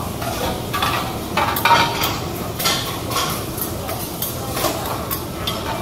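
Steel teppanyaki spatulas clanking and scraping on a flat-top griddle in quick, irregular strikes as shredded cabbage is chopped and turned, over a steady sizzle.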